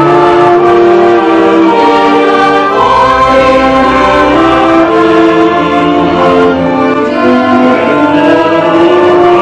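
Theatre pit orchestra playing a slow melody, with violins leading over sustained chords, picked up loudly by a domestic camcorder's microphone.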